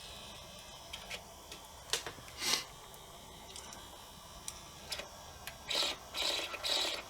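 Cassette deck transport mechanism being handled by hand: scattered light clicks and a few short scrapes and rubs, with a cluster of them near the end.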